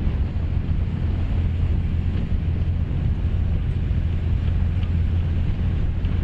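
Wind buffeting the microphone, a steady low rumble over open water.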